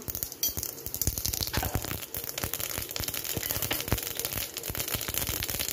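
Mustard and cumin seeds spluttering in a spoonful of hot oil while tempering: a dense, irregular run of small pops and crackles over a light sizzle.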